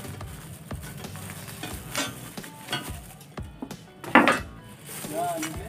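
Clear plastic bag crinkling and rustling as it is handled and pulled off, with small clicks and one louder crackle about four seconds in.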